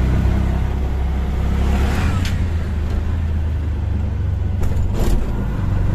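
Auto-rickshaw engine running steadily while driving, heard from inside the open passenger cabin with road noise, its low drone shifting in pitch about two seconds in. Two brief knocks sound, one about two seconds in and another near five seconds.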